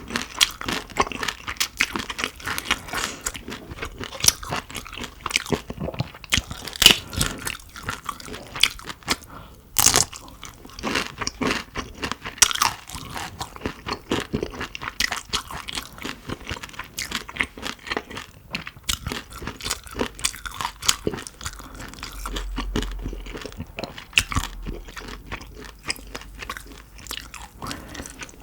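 Close-miked chewing and biting of shrimp, with dense, sharp crunching clicks throughout; one loud crunch comes about ten seconds in.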